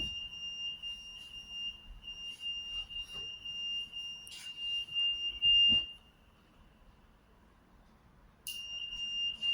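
Acousto-magnetic (58 kHz) EAS security gate alarm sounding a steady high-pitched tone, set off by an EAS label sticker tested at about 1800 mm from the gate. The tone stops about six seconds in and starts again near the end, with a few handling knocks over it.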